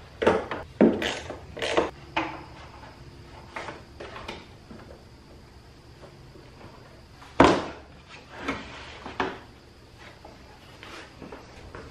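Scattered clicks, knocks and clunks of plastic under-hood parts being unclipped and handled as the V6 engine cover and intake pieces come off. The loudest clunk comes past the middle.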